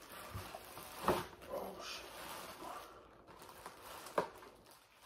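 Clear plastic cooking bag of seafood boil crinkling and rustling as it is handled and tipped into a plastic container, with two sharper crackles, one about a second in and one near the end.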